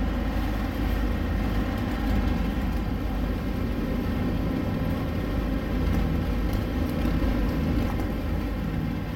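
Sailboat's engine running steadily under way, a constant drone with a deep rumble beneath it.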